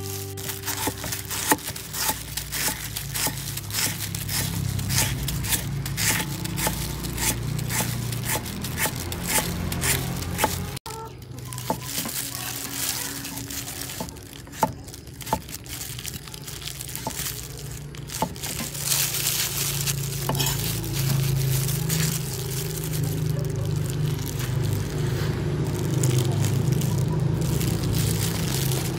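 Knife chopping on a wooden cutting board as lemongrass, shallots and red chilli are sliced: quick runs of knocks, several a second, sparser in the second half, over background music.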